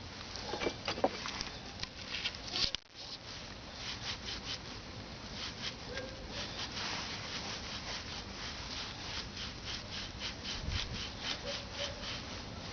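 Car anti-roll bar bushing squeaking over and over in a quick, short rhythm, about two squeaks a second, with a brief break about three seconds in.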